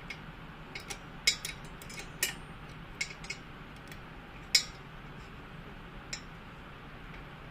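A 10 mm wrench tightening the nuts on an electric bike's magnetic buckle mount: scattered small metal clicks and clinks, irregular, with the loudest about four and a half seconds in.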